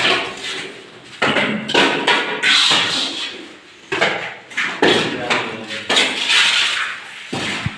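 Irregular knocks of hand tools on masonry, roughly one a second, with people talking.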